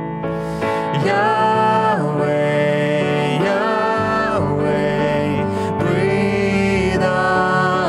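A woman and a man singing a slow worship chorus together over instrumental accompaniment, with long held notes.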